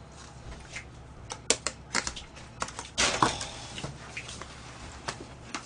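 Plastic takeout food containers and lids being handled on a table: a scatter of sharp clicks and clacks, with a longer rustle about three seconds in.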